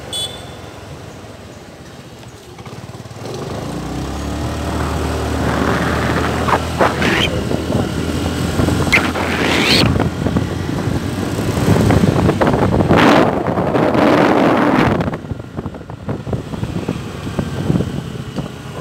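Honda Activa 4G scooter's small single-cylinder engine running while riding at about 40 km/h, with road and wind noise on the handlebar-mounted phone microphone; the sound grows louder about four seconds in.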